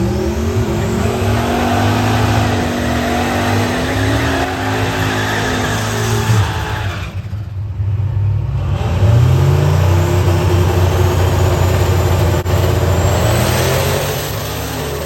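Turbocharged small-block Ford V8 of a drag car revving hard, its pitch climbing and falling. The engine drops away briefly about seven seconds in, then pulls up again, with a faint high whine rising over it near the end.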